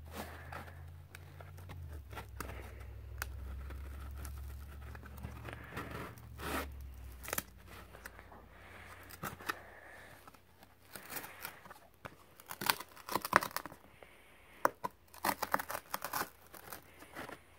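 A coloring pad's plastic packaging and marker clip being handled: crinkling and crackling. A low rumble runs through the first several seconds, then comes a run of sharp clicks and crackles in the second half as the marker is worked out of its plastic clip.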